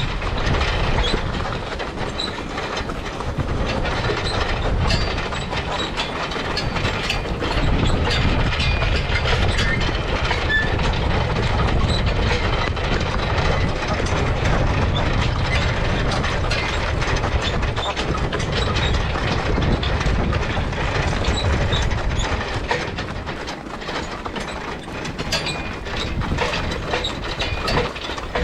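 A steel excavator track dragged over the ground behind a team of draft horses: a continuous scraping and clanking rattle with many sharp metallic clicks.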